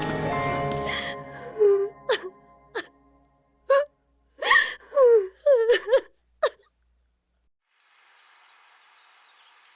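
Solo piano music fades out, then a person makes a string of short gasps and whimpers, several in quick succession. Near the end there is a faint hiss of room ambience.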